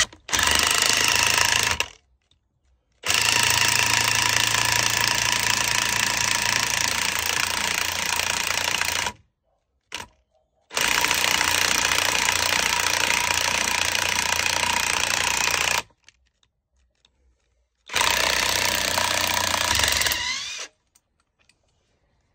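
Makita DTW1002 18V cordless impact wrench hammering on a 5-inch coach screw in a log, in four runs of a few seconds each with short stops between. A brief rising whine comes near the end of the last run.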